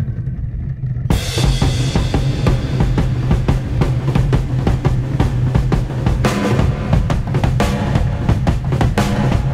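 Rock music soundtrack: after about a second of low bass alone, a full drum kit comes in with bass drum, snare and cymbals.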